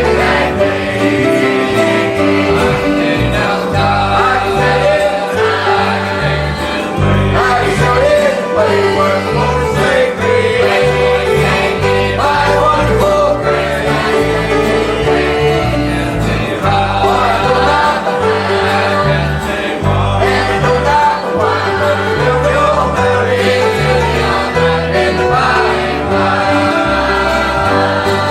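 Gospel song: voices singing over accompanying instruments, with a steady bass line.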